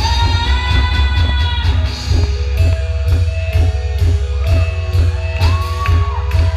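A live band playing a song: a drum kit keeps a steady beat over a strong bass, with held chords coming in on top about two and a half seconds in.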